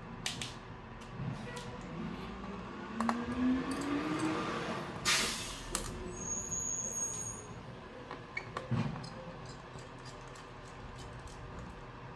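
Small clicks and knocks of a screwdriver and loosened screws being handled on a metal heatsink and circuit board, with a brief rising whine a few seconds in and a short hiss about five seconds in.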